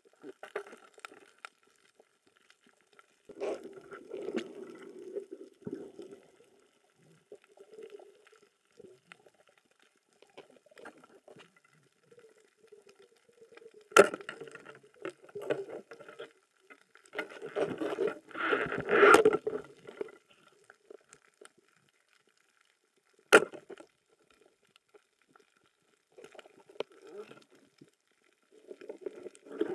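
Underwater sounds picked up through a camera housing: bursts of bubbling and scraping noise, with two sharp knocks, one about halfway through and one near three-quarters through, as a speargun shaft is shot and strikes the reef rock.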